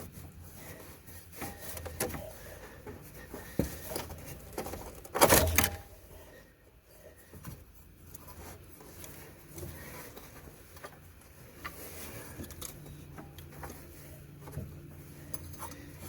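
Hand work on a side-by-side's CVT drive belt and clutch housing: scattered clicks, knocks and rubbing as the belt is worked around the spread secondary sheave, with one loud clatter about five seconds in. A faint low hum sets in during the second half.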